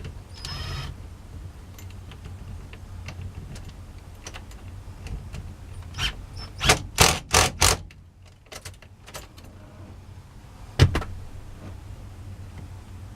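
Clinks and rattles of tools and steering-column parts being handled during reassembly, with a quick run of about five loud strokes around the middle and a single sharp knock near the end.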